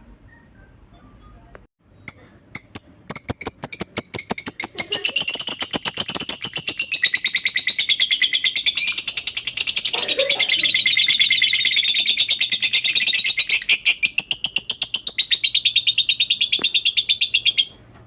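Lovebird giving its long 'ngekek' chatter. A few sharp chips about two seconds in lead into a rapid, unbroken stream of high, shrill notes that runs for about fourteen seconds and cuts off suddenly near the end.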